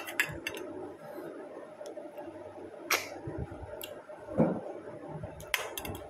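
Close-up eating sounds: chewing with scattered sharp mouth clicks and smacks. Near the end, a quick run of clicks as fingers pick among snail shells on a steel plate.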